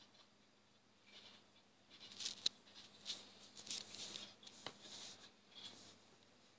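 Faint taps and scratchy rubbing of fingertips on a tablet's touchscreen while working a drawing app, a cluster of soft scrapes and a few sharp little clicks starting about two seconds in and dying away near the end.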